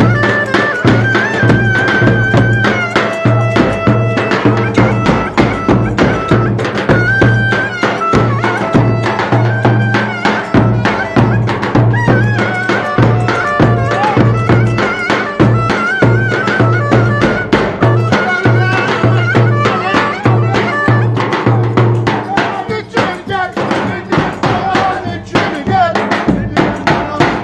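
Turkish folk dance music: a reedy wind instrument plays a wavering, ornamented melody over a steady, pulsing drum beat.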